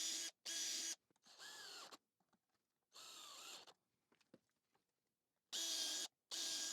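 Power drill driving screws in about six short bursts, its motor whine dipping in pitch as each screw takes the load.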